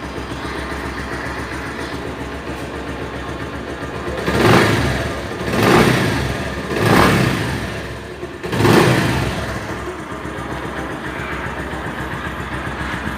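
Bajaj Pulsar 150 single-cylinder engine breathing through a fitted KTM 200 exhaust, idling and then blipped four times in quick succession around the middle before settling back to idle.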